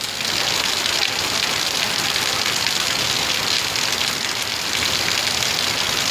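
Heavy tropical downpour: a steady, dense hiss of rain pouring down, very heavy.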